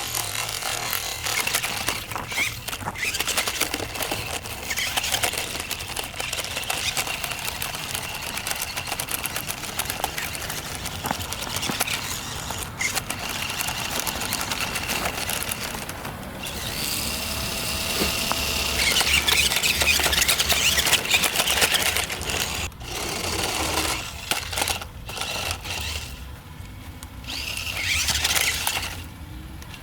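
Toy RC stunt car's small electric motors whining as it is driven, with its wheels scraping over the ground; louder for a few seconds past the middle.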